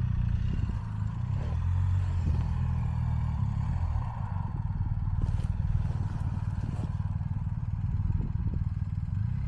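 BMW R 1250 GS's boxer-twin engine running steadily at low revs as the heavy adventure bike is worked on a steep off-road slope, with a few light knocks and clatters.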